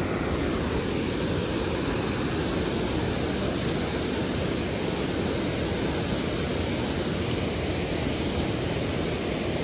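Steady rushing of water at a canal lock, an even noise without breaks or distinct knocks.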